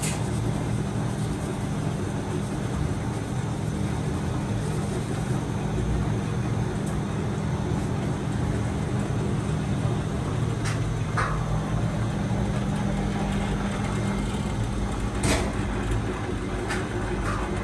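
Steady low hum of bakery machinery, with a few sharp clicks and a metallic clink in the second half.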